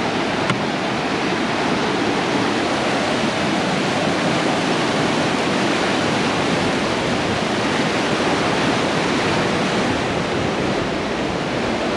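Fast, turbid mountain river rushing over rocks directly below, a loud, steady whitewater rush that does not change.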